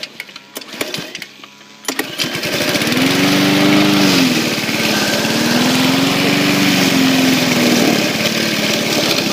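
Petrol lawn mower engine catching about two seconds in after a few sharp knocks, then running with its speed repeatedly sagging and picking up again. It runs at low revs without power, bogging down in thick grass.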